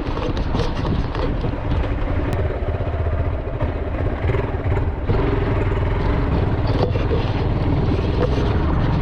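Motorcycle engine running as the bike is ridden, with a steady low rumble that gets louder about five seconds in.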